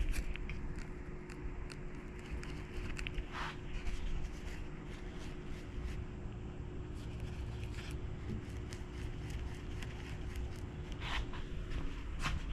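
A paintbrush scrubbing and dabbing paint onto a metal bicycle fender: short scratchy strokes now and then, with scattered light clicks and taps of the brush and paint pots.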